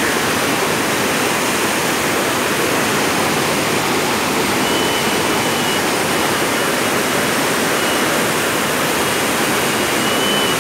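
Steady, loud rushing noise with no rhythm or breaks, with a faint thin high whistle coming and going from about halfway through.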